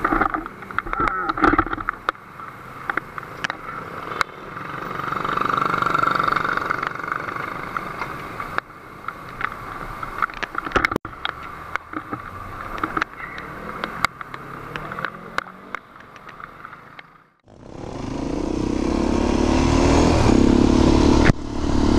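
Scrapes and knocks of a fallen sport motorcycle being handled and lifted off the road, with a vehicle passing in the background. After a sudden break, a vehicle engine runs steadily with loud wind rush.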